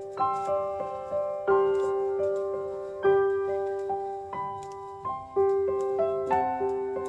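Background piano music: a gentle melody of struck notes, each left to ring and fade, with a stronger note about every second and a half.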